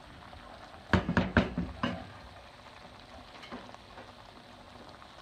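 Chicken liver and gizzards frying in oil in a nonstick pan, a low sizzle, once the cooking water has dried off. About a second in comes a quick cluster of four or five knocks from the spatula against the pan.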